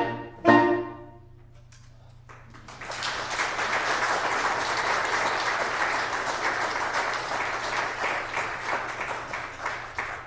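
A saxophone quartet's final short chord, cut off about half a second in and ringing briefly in the hall. After a pause of about a second and a half, the audience applauds, easing slightly toward the end.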